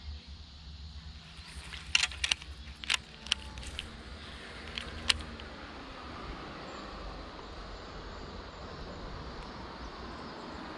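Road traffic on a bridge overhead: a low rumble, with a rushing sound building from about six seconds in as a vehicle passes. Several sharp clicks and knocks come in a cluster two to five seconds in.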